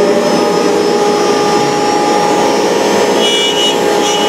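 ShopBot CNC router's spindle running at steady speed together with its dust-collection vacuum: a steady whine over a rushing noise. A brief higher whistle comes about three seconds in.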